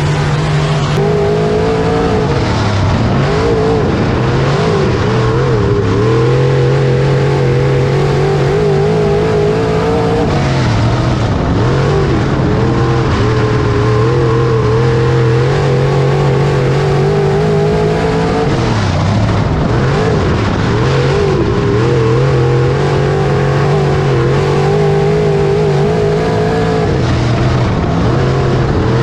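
Dirt-track modified's race engine at racing speed, heard from inside the car's cockpit. The revs climb on the straights and drop each time the driver lifts for a corner, lap after lap.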